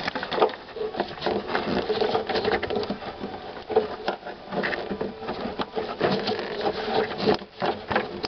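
Rapid, irregular clicking and scraping of a tool prying the throttle cable's grommet out of a car's firewall.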